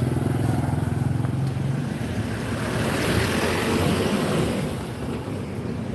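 Street traffic heard up close: a motor vehicle engine running with a low, quickly pulsing rumble, and a rushing noise that swells about three seconds in and fades again, with wind on the microphone.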